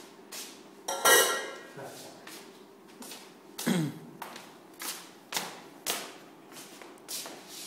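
Steps on a hard tiled floor: a run of short, uneven clicks and taps, about two a second, with one louder sound about a second in.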